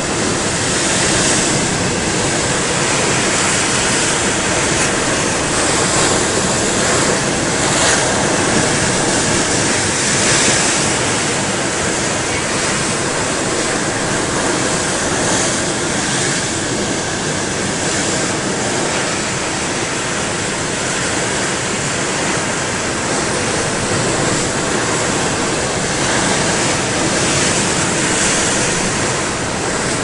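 Storm surf breaking against a rocky cliff base: a continuous loud rush of churning seawater, surging each time a wave crashes in.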